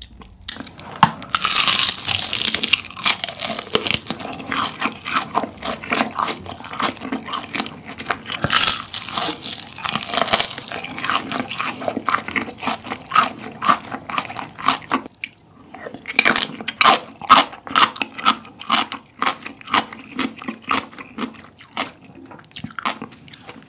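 Close-miked biting and chewing of crispy honey-glazed fried chicken: rapid crackling crunches throughout, loudest around two seconds in and again around nine to ten seconds, with a short lull about fifteen seconds in.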